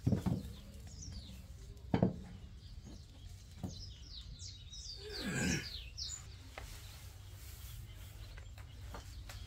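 Two heavy thuds about two seconds apart, with a lighter knock later, as iron dumbbells are handled on a concrete floor. Short high chirps of birds come and go in the background, and a brief falling whoosh sounds about five seconds in.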